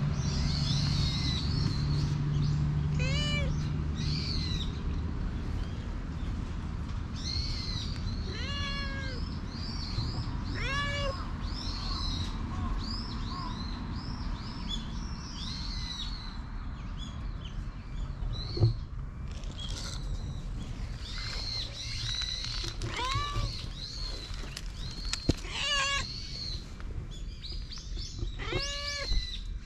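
Tortoiseshell stray cat meowing now and then while being petted: short meows that rise and fall in pitch, about seven of them. Small birds chirp throughout, and two sharp knocks stand out partway through.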